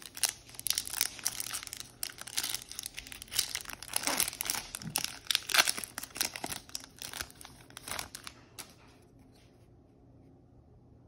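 Wrapper of a Topps Chrome trading-card pack being torn open and crinkled by hand, a dense crackle that stops about two seconds before the end.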